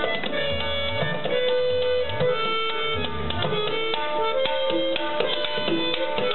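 Two tabla sets played together in a duet, with dense strokes over a repeating lehra melody of held notes on harmonium. Between about half a second and three and a half seconds in, the bass drums (bayan) swoop up and down in pitch several times.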